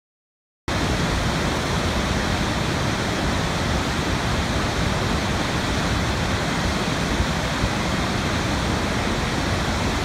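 Waterfall: a loud, steady rush of falling water that starts abruptly about a second in and cuts off suddenly at the end.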